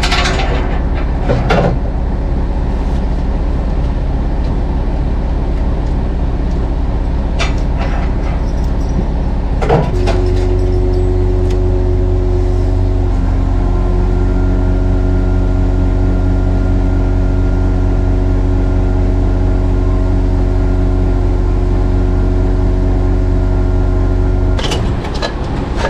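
Heavy machinery running while a cable drum is hoisted on a crane: a low rumble with a few knocks at first. About ten seconds in, a steady low hum with several held tones comes in, and it stops abruptly near the end.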